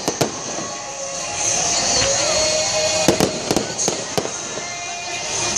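Aerial fireworks bursting: two sharp bangs at the start and a quick cluster of four or so bangs about three seconds in, over a steady hiss.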